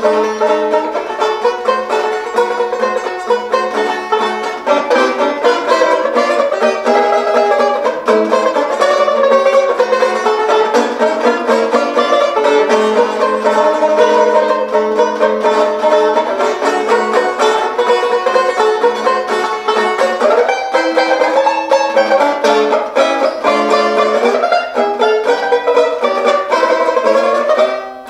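Epiphone Recording Art Deluxe tenor banjo played solo, fast single notes and strummed chords picked in quick strokes; the playing stops at the very end.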